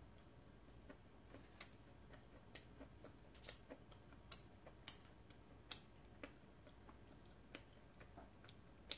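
Faint, irregular mouth clicks of someone chewing soft, freshly baked corn bread, roughly one click a second over near silence.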